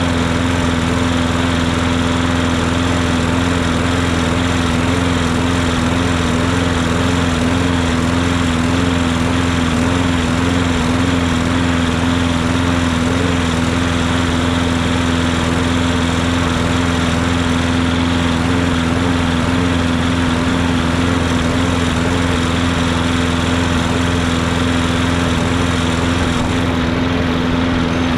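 Craftsman 6.5 HP push mower's single-cylinder engine running steadily at a fairly even speed, a little rough and surging slightly. The owner thinks the missing air cleaner could be the cause.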